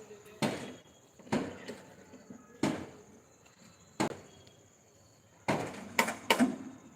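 Sharp knocks and bangs on centring formwork, about seven at uneven intervals, with three close together near the end.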